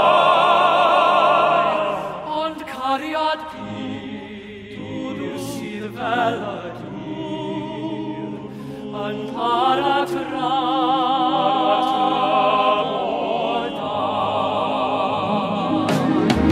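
Male voice choir singing a slow song in harmony with vibrato, accompanied by a chamber orchestra. It is loud at first, softens through the middle and swells again near the end.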